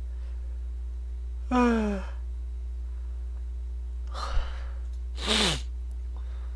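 A man sighing and yawning: a short sigh with a falling voice, then a wide yawn with a breathy intake and a sharp click, ending in another falling voiced exhale. A steady low hum runs underneath.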